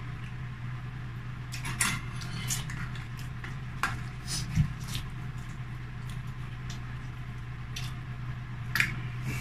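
Eating sounds at a meal table: chopsticks and a spoon and fork clicking against bowls and plates, with noodles slurped and chewed, in short scattered bursts. Under them runs a steady low hum.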